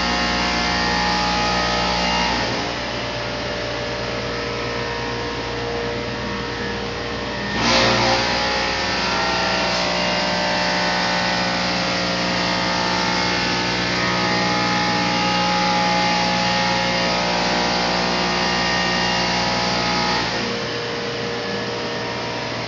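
Steady whir and hum of server-room equipment fans and cooling, with many steady tones. The low hum drops about two and a half seconds in and again near the end. A short loud noise comes about eight seconds in.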